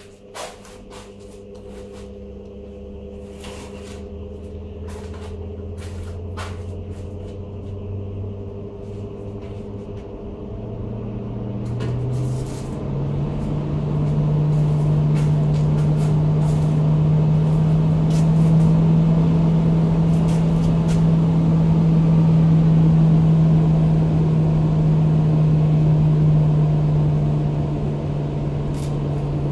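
Blower door fan spinning up under automatic control to depressurize the building for an airtightness test. Its hum rises in pitch and grows louder over roughly the first dozen seconds, then runs steadily at high speed. A few light clicks sound early on.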